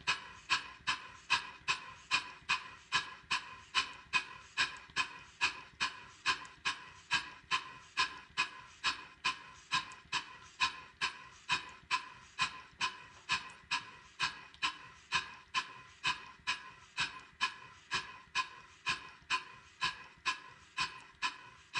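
Stuart Models 5A model steam engine running steadily on test, its exhaust puffing in an even beat of about two and a half puffs a second.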